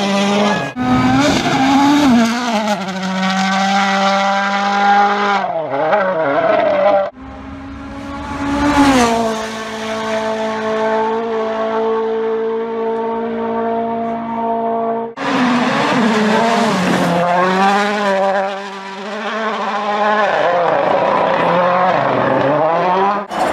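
Toyota Yaris WRC rally car's turbocharged four-cylinder engine at full attack, heard in several edited clips one after another. The engine pitch climbs and drops with gear changes, holds steady for a long stretch in the middle, and the sound changes abruptly at each cut.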